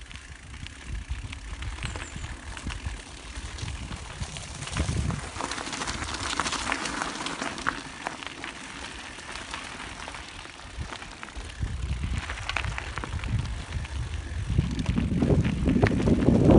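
Handcycle rolling along a dirt mountain-bike trail: tyres crunching and scraping on the surface, with clicks and rattles over bumps and a low rumble of wind on the microphone that grows louder near the end.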